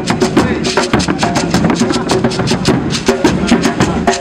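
Percussion-led music: drums and sharp wood-block-like clicks keeping a fast, steady beat, with a melody of held notes underneath.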